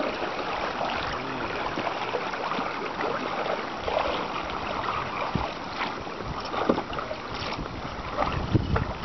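Water rushing and lapping along a canoe hull as it moves quickly across a lake, with a few small knocks and splashes. Wind buffets the microphone in low rumbles near the end.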